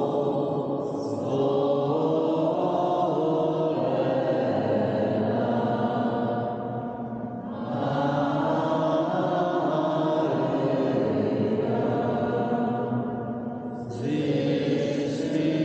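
People singing a slow, chant-like hymn in a stone church, long held notes carrying through the space. The phrases pause briefly for breath about seven and thirteen seconds in.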